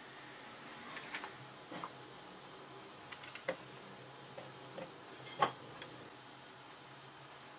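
Small clicks and taps of metal camera parts as a Tamron Adaptall-2 90mm lens is set onto a Kenko MC7 2x teleconverter and twisted into its bayonet mount, a few irregular clicks with the sharpest a little past five seconds in.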